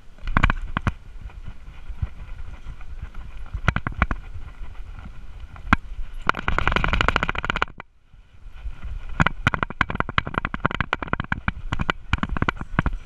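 Dog-mounted action camera knocking and rattling in its harness as the small dog moves about, with irregular knocks and a fast run of clicks about six seconds in, then more rapid clicking after a brief lull.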